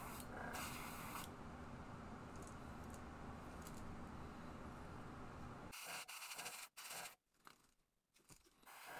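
A short airbrush hiss as metallic white paint is sprayed lightly over the lure's belly, then soft scrapes and clicks of gloved hands turning the lure in its clamp holder.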